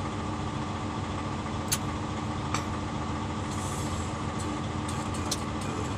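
Steady, even hum of an idling vehicle engine heard from inside the cab, with a few faint sharp clicks about two seconds in and again near five seconds.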